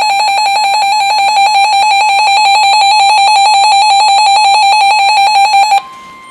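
Weather alert radio sounding its alarm for a flash flood warning: a loud, rapidly pulsing high beep that cuts off abruptly near the end. A fainter steady, slightly higher warning tone from the weather radio broadcast is left sounding.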